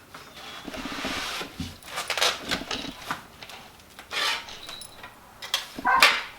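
Packaging rustling and handling noises from unboxing a brake kit: irregular scrapes and rubbing with a few short knocks as parts and wrapping are moved about, and a louder rustle near the end.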